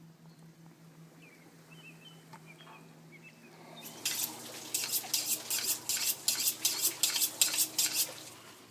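A knife scraping against metal or fish in quick strokes, about three a second, starting about four seconds in after a faint steady hum.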